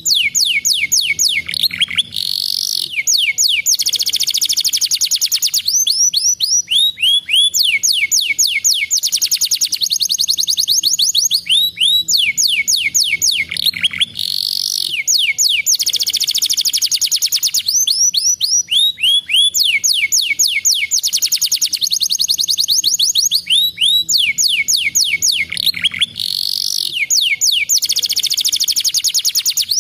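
Domestic canary singing loudly in long, rapid trills of high, quickly falling notes, phrase after phrase with only brief breaks.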